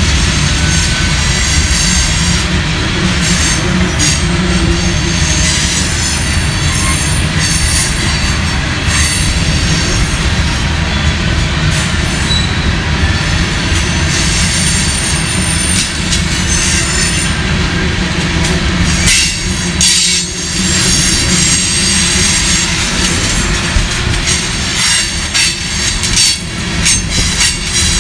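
Covered hopper cars of a freight grain train rolling past close by: a steady heavy rumble of steel wheels on the rails, with high-pitched wheel squeal throughout and clacks over rail joints, more of them in the second half.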